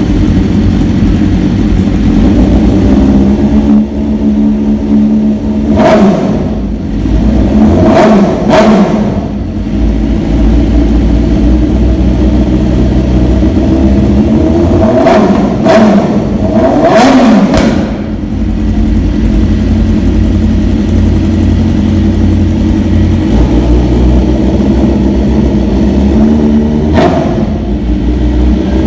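Sportbike engine idling, with the throttle blipped several times: the revs shoot up and drop back in quick pairs twice, then in a cluster a little after the middle, and once more near the end.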